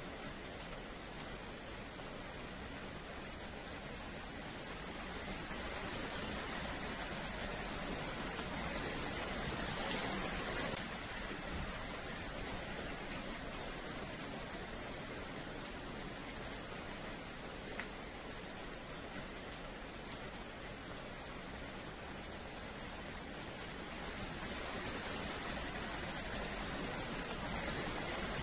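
Steady rain falling on a wet paved yard, growing louder for a few seconds about a third of the way in and again near the end.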